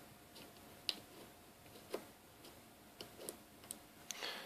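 Small, faint clicks and taps of a SIM card being handled and slid into a Samsung Galaxy S3's slot, a few isolated ticks about a second apart. A short scraping rustle near the end.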